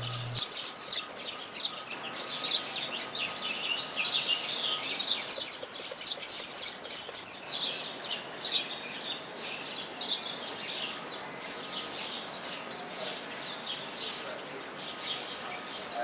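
Small birds chirping: a steady stream of many short, high chirps.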